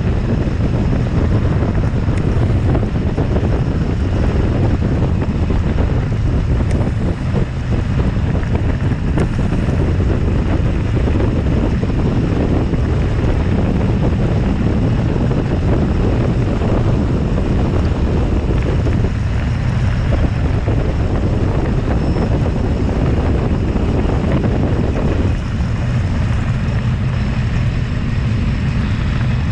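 Steady, loud wind buffeting on the microphone of a camera carried along on a mountain bike during the ride.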